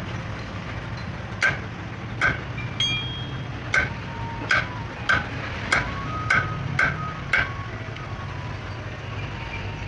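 A hammer striking metal nine times at an uneven pace, each blow ringing briefly, over a steady low engine hum.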